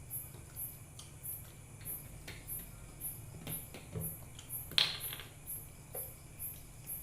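A cricket chirping steadily, about twice a second, with scattered light clicks and knocks of eating utensils and dishes; the loudest clack comes near five seconds in.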